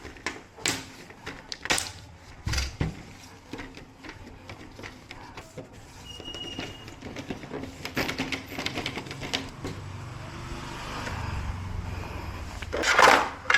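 Scattered clicks and knocks, with a short high beep about six seconds in and a louder rushing burst near the end.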